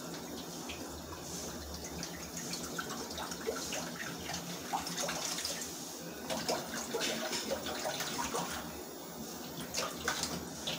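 Water poured from a plastic bottle into a pan on a gas stove, a steady pouring sound broken by irregular small splashes.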